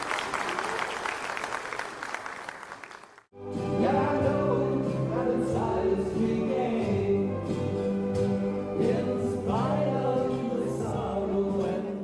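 Applause fading over the first three seconds, then, after a sudden cut, a song: singing with guitar accompaniment over sustained chords.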